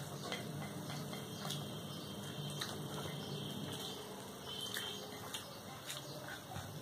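Fingers mixing rice with dal and curry on plates, soft wet squishing with scattered light clicks, over a steady low hum.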